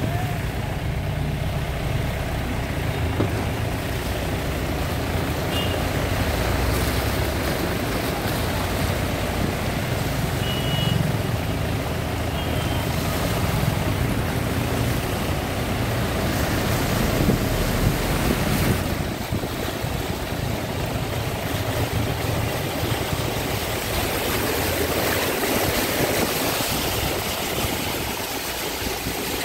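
Mahindra Bolero's diesel engine running steadily at low speed while the SUV wades through a flooded street, with floodwater swishing and splashing around its wheels and body.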